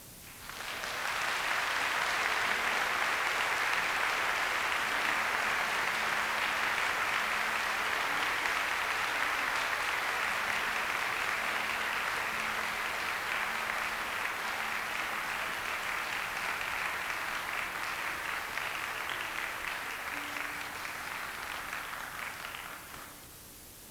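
Large audience applauding steadily, easing slightly, then stopping abruptly about a second before the end.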